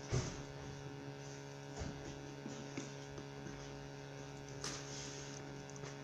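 Steady electrical hum, with a short thump right at the start and a few fainter knocks and clicks near two and five seconds.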